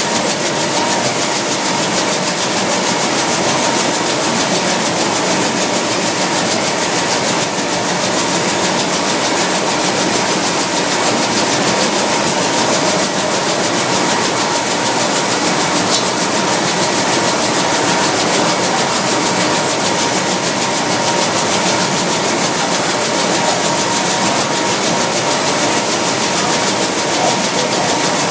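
Industrial nut roasting machine running: a steady, even machine noise with a constant high tone through it.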